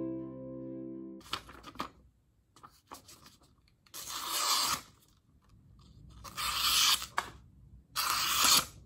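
Mandolin background music ends about a second in. After it come three rough scraping strokes, each under a second long.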